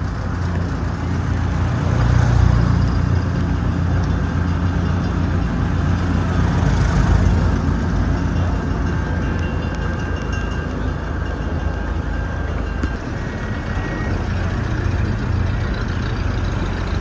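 A vehicle running: a steady low engine hum with a broad rushing noise over it.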